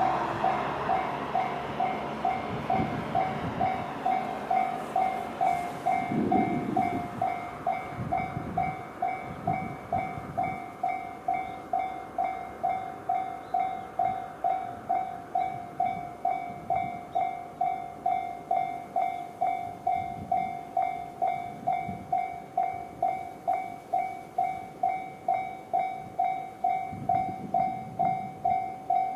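Japanese railway level-crossing alarm ringing its JR standard electronic bell tone, a steady ding repeating about twice a second. A broad train rumble fades away over the first few seconds.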